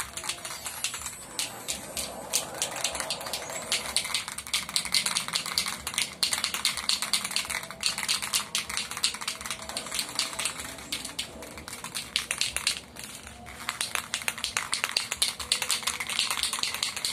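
Aerosol can of Bosny clear spray paint sprayed in sweeping passes: a crackly hiss thick with rapid clicks, breaking off briefly about six seconds in and again near thirteen seconds.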